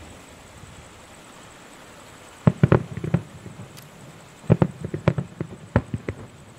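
Aerial firework shells bursting in two quick volleys of sharp bangs, the first about two and a half seconds in and a longer one about four and a half seconds in.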